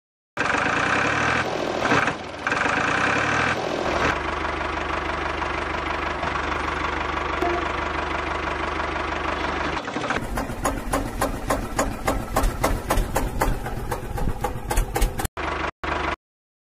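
Tractor engine running steadily, then changing to a fast, knocking chug about ten seconds in; it stops shortly before the end.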